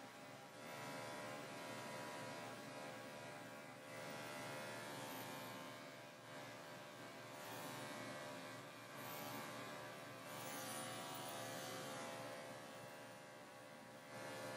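Electric dog grooming clippers running with a steady buzzing hum while shaving a pelt-matted coat down close to the skin. The level rises and falls a little as the blade works.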